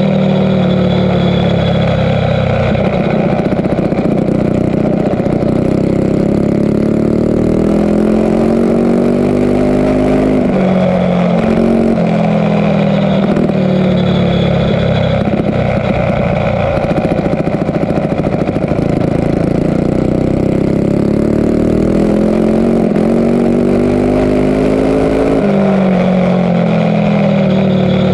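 Mini bike engine at racing speed on a dirt flat track, its pitch climbing in long runs and dropping back several times as the throttle opens and eases off around the laps.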